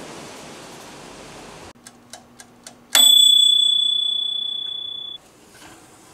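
Toaster oven's timer ringing its bell once at the end of baking, a single bright ding that fades over about two seconds, after a few faint ticks of the winding-down timer.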